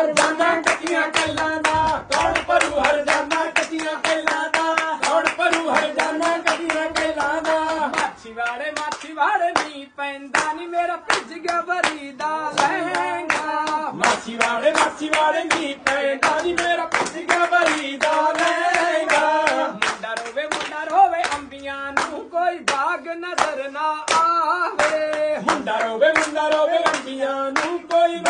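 Punjabi boliyan folk couplets sung in a small room, kept in time by steady rhythmic hand-clapping. The singing and clapping break off briefly about eight seconds in, then carry on.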